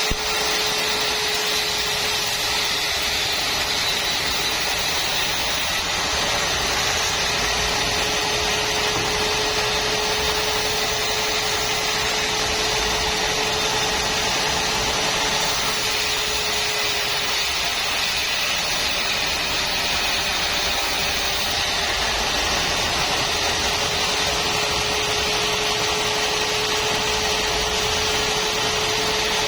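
Sawmill saw running steadily, a constant whine over a dense, even machine noise without a break.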